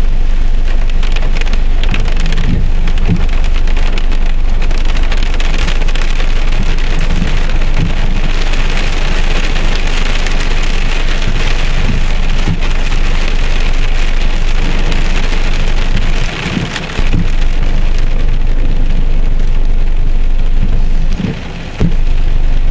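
Heavy rain pelting a car's windshield and roof, heard from inside the car: a dense steady patter with many small thumps. The sound dips briefly twice near the end.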